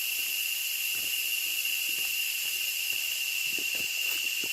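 Steady jungle insect chorus: a continuous high-pitched whine over a hiss, with a few soft thuds of footsteps on the trail.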